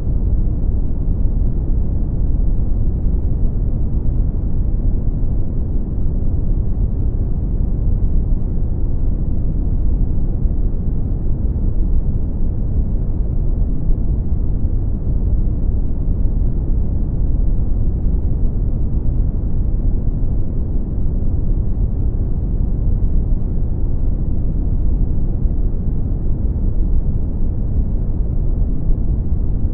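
Steady brown noise: a continuous deep rumbling hiss, strongest in the bass and dark in the treble, with no change from start to end.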